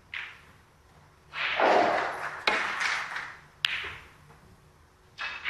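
Snooker shot: the cue tip hits the cue ball, then balls collide twice with sharp clicks about two and a half and three and a half seconds in, over a swell of audience reaction noise.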